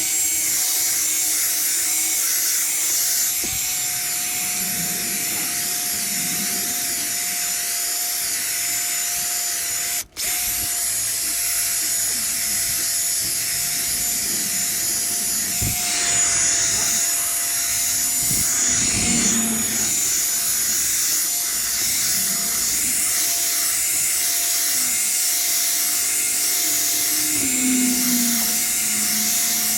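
Electric drill with a foam polishing pad buffing a plastic headlight lens with polishing compound, the motor running at a steady pitch. It breaks off for an instant about ten seconds in.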